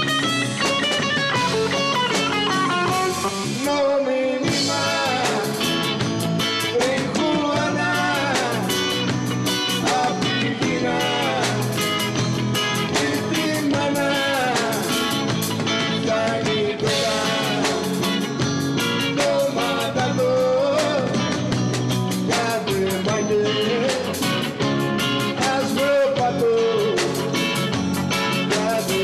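A live rock band playing: electric guitar, electric bass and drums, with a man singing in Greek.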